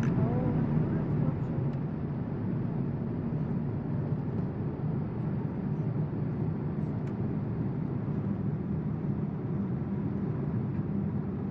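Steady cabin noise of a Boeing 787-8 in cruise flight: an even, low rumble heard from inside the passenger cabin.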